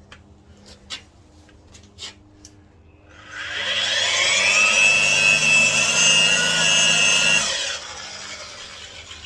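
An electric power tool spins up, runs with a steady whine for about four seconds, then winds down. A few light knocks come before it.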